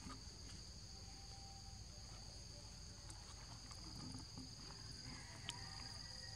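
Faint, steady, high-pitched drone of forest insects, two close pitches held without a break, with a few faint ticks.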